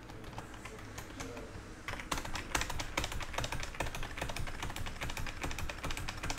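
Typing on a computer keyboard: a few scattered keystrokes at first, then quick, steady keystrokes from about two seconds in.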